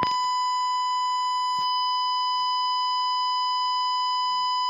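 Colour-bars test tone: a steady 1 kHz beep held without a break, the standard signal for a paused or interrupted programme.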